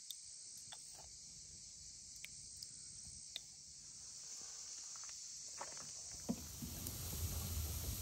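Quiet outdoor background: a steady high hiss with a few scattered sharp clicks, and a low rumble building up near the end.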